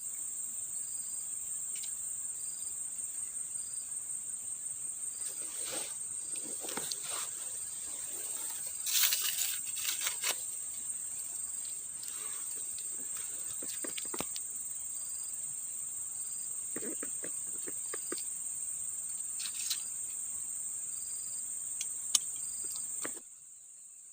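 Steady high-pitched insect drone with a faint, evenly repeating chirp behind it, broken by a few rustles and knocks. It all cuts off suddenly near the end.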